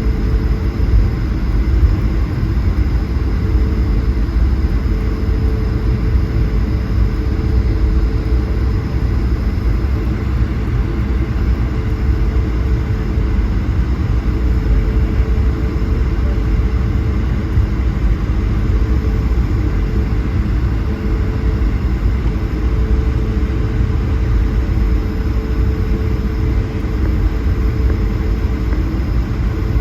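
Steady in-cabin rumble of an Airbus A220-100's Pratt & Whitney PW1500G geared turbofans and rushing air, heard from a passenger seat, with a steady engine hum.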